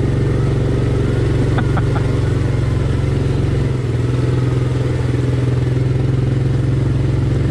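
ATV engine running steadily while the quad rides along the trail, with a slight change in its note about halfway through.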